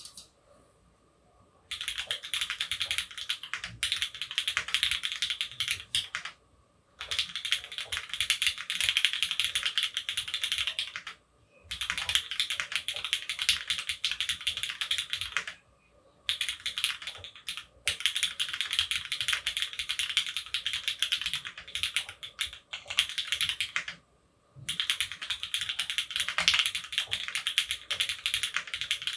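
Mechanical keyboard typing: an F1-8X gasket-mount board with lubed, retooled Cherry MX Black linear switches on an aluminium leaf-spring plate. Fast runs of key strokes a few seconds long, broken by short pauses, starting about two seconds in.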